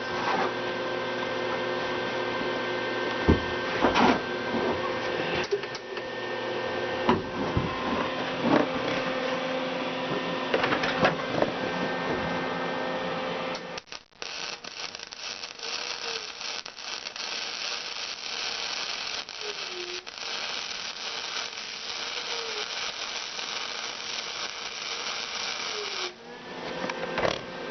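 A Lincoln Power MIG 180 Dual welder running flux-core wire: a steady electrical hum with a few knocks, then about halfway through the arc strikes and crackles steadily for about twelve seconds as a bead is laid, stopping abruptly near the end.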